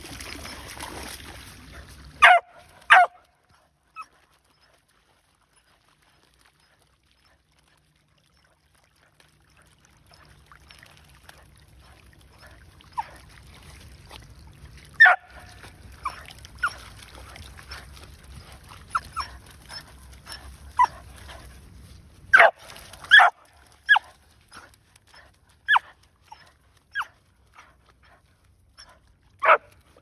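A cattle dog giving short, high-pitched whining yelps, a dozen or so scattered irregularly and loudest in close pairs, while it paws at a muddy stream of running water. Water trickles for the first couple of seconds.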